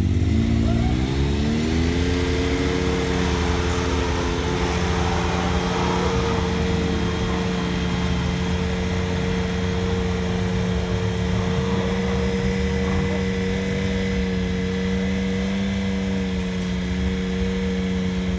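Car engine running, its pitch rising over the first two seconds and then holding steady.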